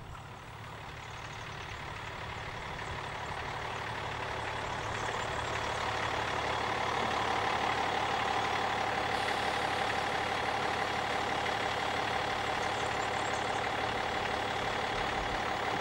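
Class 672 light diesel railcar approaching on the track, its engine and wheels growing louder over the first half, then running steadily.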